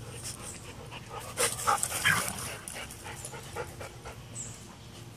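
Dog panting, with a few short, louder sounds about one and a half to two seconds in.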